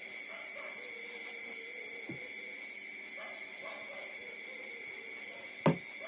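Newborn puppies nursing, making soft, faint whimpers and whines over a steady high-pitched background tone. A single sharp thump near the end is the loudest sound.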